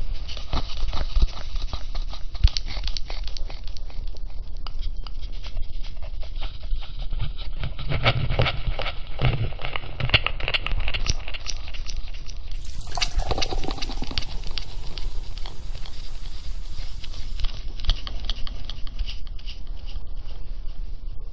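Cat litter being scooped and sifted: a steady run of gritty scraping, rattling and small clicks, with one short falling tone about thirteen seconds in.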